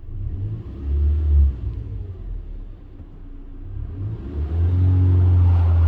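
2004 Toyota Tacoma's 2.7-litre four-cylinder engine running and being revved twice: a short rise about a second in, then a longer rise held near the end. It runs evenly, its misfire cured by a new ignition coil.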